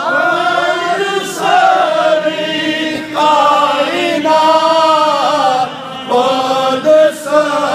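A man chanting a melodic religious recitation into a microphone, holding long notes that waver and bend, with short breaks for breath.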